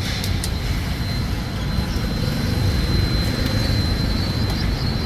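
Steady low rumble of street traffic with oil sizzling in a frying wok, and a few sharp clicks of metal tongs against the wok, about half a second in and again near the end. A thin steady high tone runs underneath.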